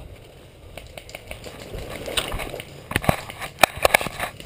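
Tall grass and brush rustling against a body-worn camera and clothing as someone pushes down into the grass. In the second half comes a quick run of sharp knocks and clicks, the loudest near the end, as gear and the airsoft rifle bump about.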